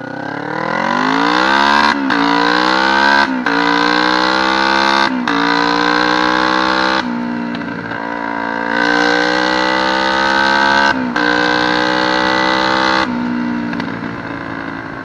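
Custom 'Ninja' dirt bike's engine accelerating hard through the gears, its pitch climbing in each gear and dipping at each of several quick upshifts. The bike is running on newly installed carburetor jets.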